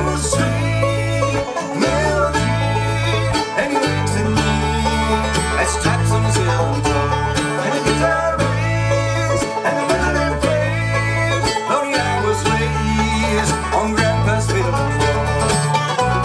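Bluegrass band playing: banjo rolls, mandolin and acoustic guitar over a steady, stepping bass line.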